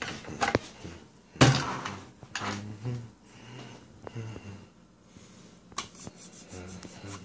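Hard objects being handled: a few sharp clacks and knocks, the loudest about a second and a half in, with rubbing and shuffling between them.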